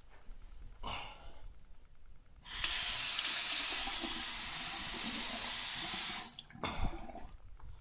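Faucet running into a sink, turned on about two and a half seconds in and shut off about four seconds later.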